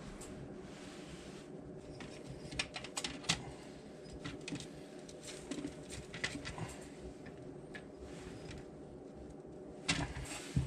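Scattered light clicks and knocks of hand work with small parts and tools, in small clusters with a louder knock near the end, over a steady low hum.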